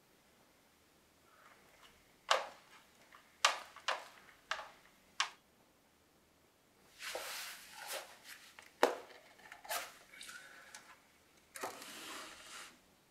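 Small handling sounds: a scatter of sharp clicks and light knocks, with a couple of short rustles, then a wooden drawer sliding open near the end.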